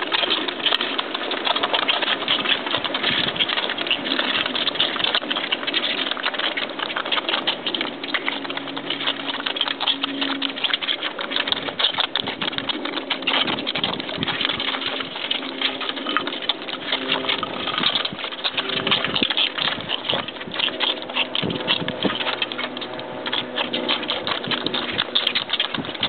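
Several micro mini piglets lapping and slurping milk from a cookie sheet, loudly and without pause, a dense rapid clatter of wet smacks.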